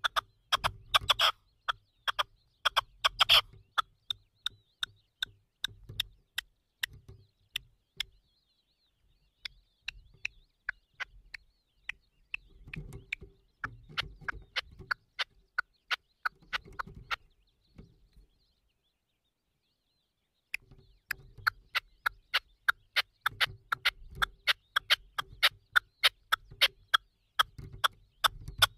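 Red-legged partridge calling: long runs of short, sharp notes, several a second, in bouts broken by two pauses of a couple of seconds.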